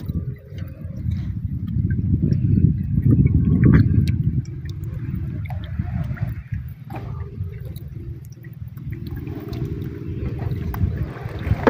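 Water sloshing and gurgling against the hull of a small outrigger boat, a low uneven rumble that swells and fades, with faint clicks of net being handled.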